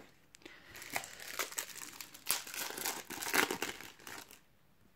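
Plastic foil sachet of Panini Adrenalyn XL trading cards being torn open and crinkled in the hands: a run of crackling rustles with a sharp tear about two seconds in.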